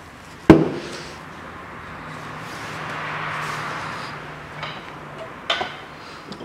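A sharp, loud clack about half a second in as a metal brake caliper piston and the caliper are set down on a plastic parts tray. A rushing noise then swells and fades over a couple of seconds, and a few light knocks follow near the end.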